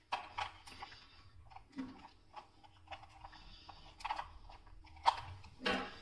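Light, irregular plastic clicks and taps as spider-wrap security tags and a pair of scissors are handled on a hard tabletop.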